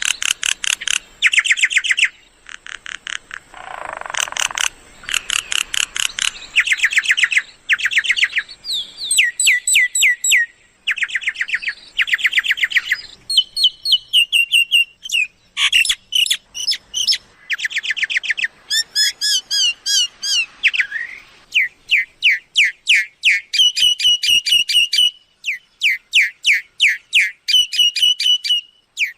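Myna calls of the kind played as a trapping lure: rapid runs of repeated whistled and chattering notes in changing phrases, one series after another with only short pauses.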